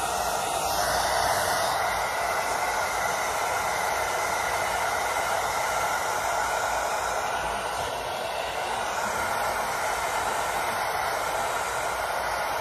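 Handheld hair dryer blowing steadily, aimed at the hairline to dry lace-wig adhesive.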